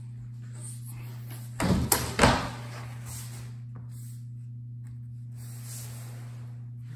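A thin luan plywood panel set down flat on a work table: a quick cluster of thumps and clatter about two seconds in, over a steady low hum.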